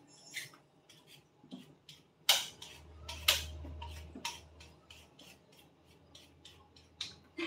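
Hands preparing green vegetables at a kitchen counter: a string of short, crisp snaps and clicks, the loudest two about two and three seconds in.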